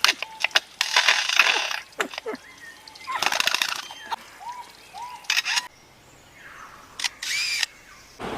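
Bird mimicry: a jumble of sharp clicks, short hissing bursts and brief arched whistles, some of the clicks like a camera shutter.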